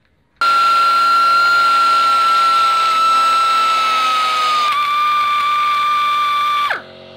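Handheld rotary tool running with a steady high-pitched whine as it grinds at the serpentine belt tensioner bolt hole in a cast engine housing; the pitch sags slightly under load partway through, then falls away sharply near the end as the tool winds down.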